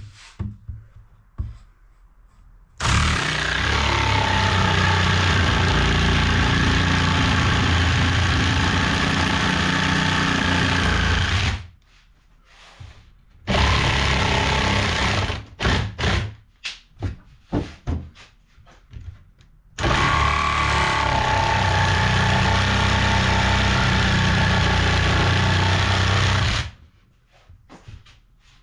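An electric power tool's motor running steadily for several seconds, twice, with a short burst between and scattered knocks and clatter in the gaps.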